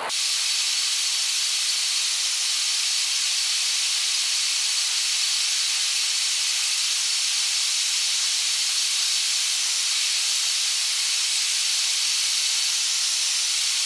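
Steady, even hiss with no low rumble and no pitch to it, cutting in and out abruptly.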